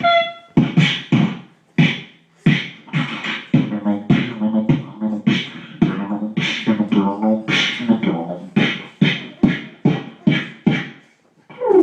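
A man beatboxing: a steady rhythm of vocal drum sounds made with the mouth, some strokes carrying a hummed pitched tone, with a short break near the end.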